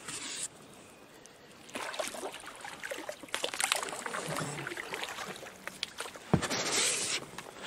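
Dry reed stalks rustling and crackling, with water sloshing, as an inflatable rubber boat is pushed off from a reedy lakeshore; a thump about six seconds in is followed by a brief rush of noise.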